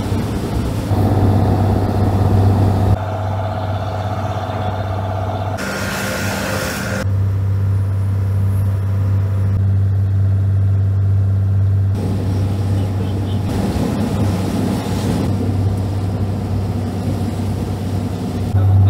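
Fishing boat's engine running steadily with a low hum, its tone and level changing abruptly several times.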